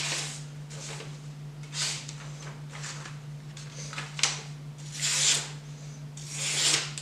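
A freshly sharpened pocket knife blade slicing through a sheet of paper, about five short hissing swishes a second or so apart. The cuts feel much smoother, a sign of the newly polished edge.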